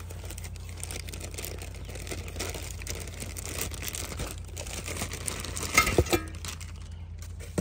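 Clear plastic packaging bag crinkling and rustling as a black brake caliper cover is worked out of it by hand, with a brief louder burst of crackles about six seconds in.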